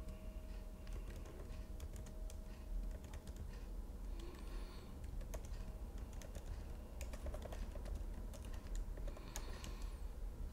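Typing on a computer keyboard: irregular runs of key clicks with short pauses, over a faint steady low hum.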